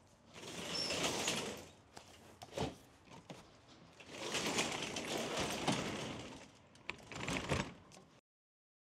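Roll-up rear door of a U-Haul box truck rattling as it is pulled down in stretches, with a sharp knock between them. The rattling cuts off abruptly near the end.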